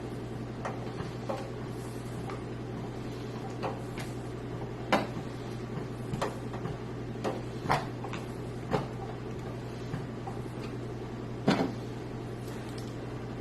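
Scattered light clicks and knocks of computer parts, screws and the metal case being handled during a PC build, irregular and a few seconds apart, the sharpest near the end, over a steady low hum.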